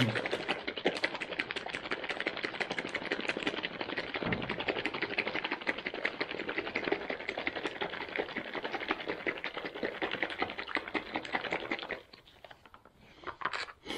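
Freeze-dried smoothie pouch being shaken hard to mix powder and water: a rapid, even rattle and crinkle of the packaging that stops suddenly near the end.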